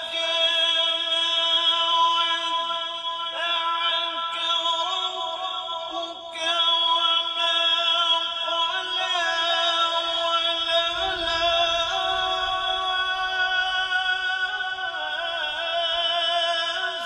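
A male qari reciting the Quran in qirat style, singing a long drawn-out melodic phrase with held notes that waver and turn in pitch, with a short break about six seconds in.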